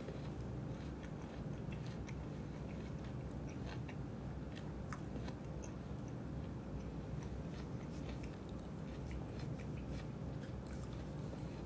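A person chewing mango close to a phone's microphone: small, irregular mouth clicks over a steady low hum.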